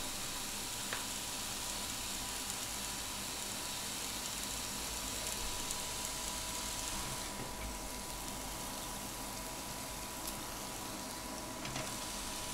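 Pork steaks sizzling between the hot plates of a closed Tefal OptiGrill Plus contact grill: a steady, even hiss with a few faint ticks.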